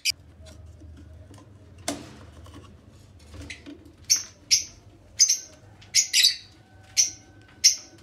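Caged bird calling in a run of short, sharp squawks, about eight of them in the second half. There is a single click about two seconds in.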